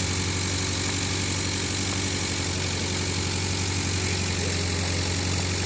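Engine of a small yellow compact loader running steadily at idle with a low, even hum while it holds a heavy signal box.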